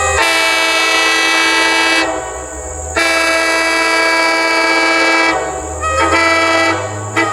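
Locomotive air horn blowing a chord in a long, long, short, long pattern, the grade-crossing signal.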